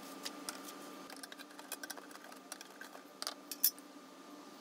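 Sheets of paper rustling and crinkling as they are spread flat on a wooden floor, with a few sharp clicks and taps, the loudest a little before the end.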